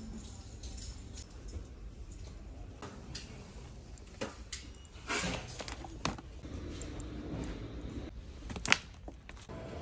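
Light handling clatter while shopping: goods being picked off shelves and a plastic shopping basket knocking and rattling, as a scatter of small clicks and knocks over a low steady hum. The sharpest, loudest click comes near the end.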